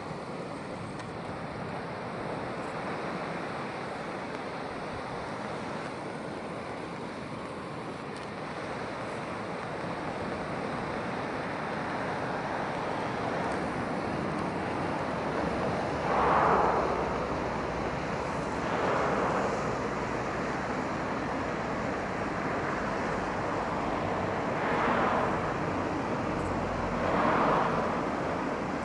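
Sea surf washing over low rocky reefs, a steady rush of water with four louder waves breaking in the second half.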